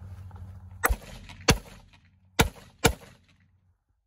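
Four blank-cartridge gunshots from a real gun firing blanks, sharp cracks in two pairs starting about a second in.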